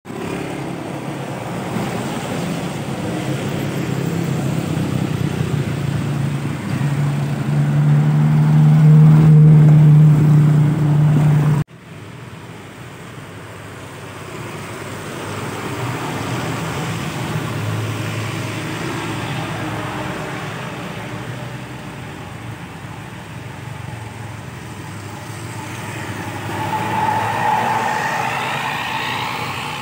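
Heavy truck engines drone deeply as trucks pass on a wet road, growing loudest about nine to eleven seconds in, then the sound cuts off abruptly. After that, cars and a bus pass one after another, their engines and tyres on the wet asphalt swelling and fading, with one louder car passing near the end.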